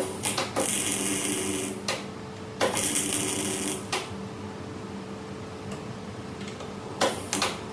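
MIG welder laying short welds on the car's A-pillar: two bursts of welding, each about a second and a half long, the first at the start and the second about two and a half seconds in, with a few sharp clicks near the end.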